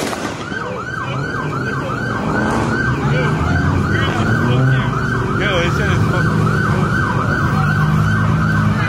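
Police car siren on yelp, rising and falling quickly about three times a second, over a low rumble.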